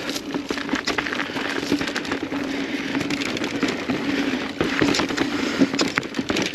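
Mountain bike rolling fast down a dirt trail: tyres crackling and crunching over dirt and small stones, with many quick clicks and rattles from the bike and a steady low hum throughout.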